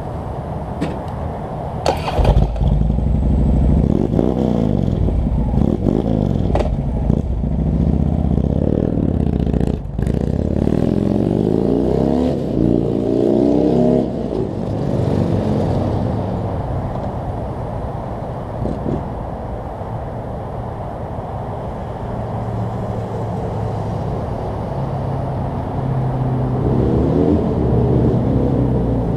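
Harley-Davidson 103 cubic inch V-twin with a Rush 2-into-1 exhaust and stage 1 kit, running as the motorcycle pulls away and accelerates through the gears down the road. The note rises in pitch twice, about halfway through and again near the end.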